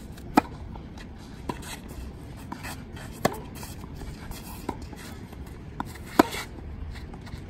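Tennis rally: sharp pops of the ball coming off racket strings and bouncing on the court, one every second or so, the loudest about half a second in and near the end.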